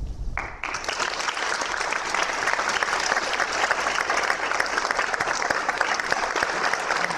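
Audience applause, breaking out suddenly about a third of a second in and then going on steadily.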